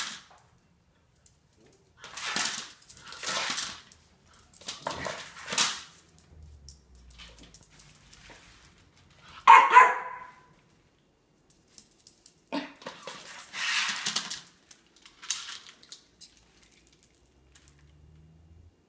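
Miniature pinscher making short bursts of noise at its food bowl, about five over the stretch, with one louder, sharper bark about halfway through.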